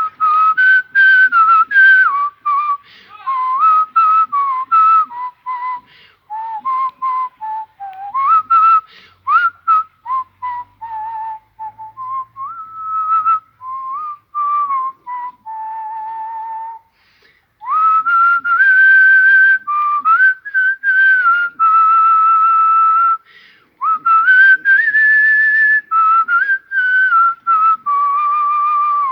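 A man whistling a melody: quick, clipped notes with short slides up and down between them, a brief break about 17 seconds in, then a run of longer held notes.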